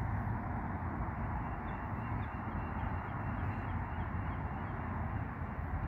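Steady outdoor background noise with a low rumble, and a run of faint, short bird calls repeating several times a second in the middle.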